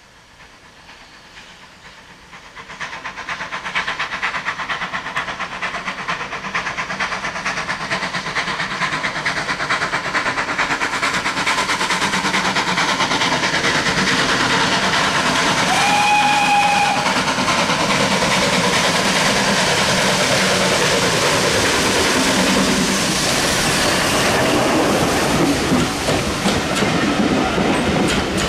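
Steam locomotive approaching and passing with a train of passenger coaches, growing loud from about three seconds in as it nears. One short whistle blast about halfway through, then the coaches' wheels clattering over the rail joints as they go by.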